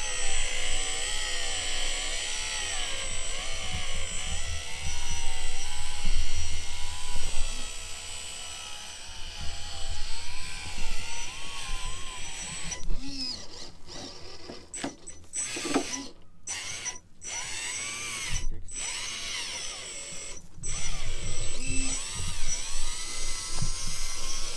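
Electric motor and gearbox of a radio-controlled scale trial truck whining as it crawls over rough ground, the pitch rising and falling with the throttle. Several brief gaps in the sound come in the second half.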